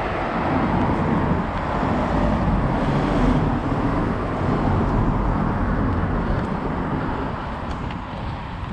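A car driving past on the road alongside, its tyre and engine noise swelling to a peak about three seconds in and then fading.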